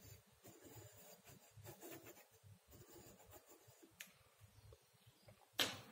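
Faint scratching of a pencil compass's lead dragging across paper as a circle is drawn on a Smith chart, with a short tick about four seconds in and a brief louder scrape near the end.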